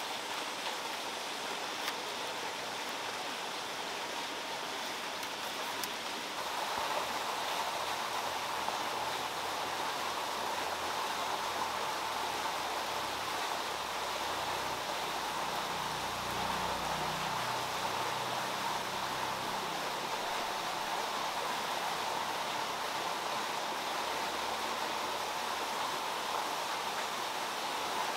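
Steady rushing noise of running water, with no clear events in it, growing louder about six seconds in.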